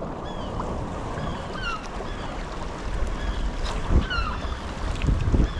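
Gulls calling over and over, many short slurred cries, over steady wind rumble on the microphone and the sea. A few sharp knocks come in the second half.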